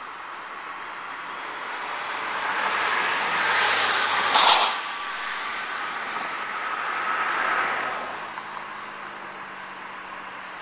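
Road traffic passing close by: two vehicles go past one after the other, each swelling up and fading away, with a brief louder burst at the peak of the first, over a steady background hiss.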